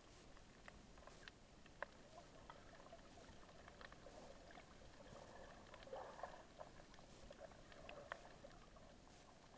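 Faint underwater sound picked up by a submerged camera: scattered sharp clicks and crackles over a soft, muffled wash of water, busiest about six seconds in.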